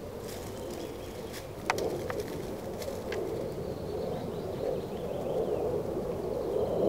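Birds calling: a low, repeated cooing under brief high chirps, with a sharp click about two seconds in.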